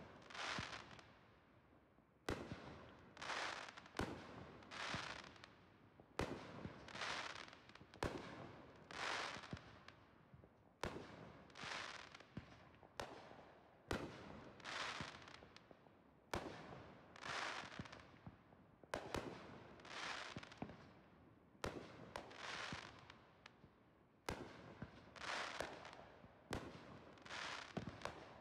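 Fireworks going off one after another, a sharp bang every second or two, each followed by a crackling hiss that fades away.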